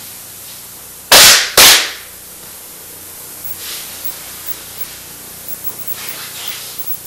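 Two loud hand claps about half a second apart, made by a group kneeling before a Shinto shrine shelf and clapping together, the kashiwade claps of a ritual bow.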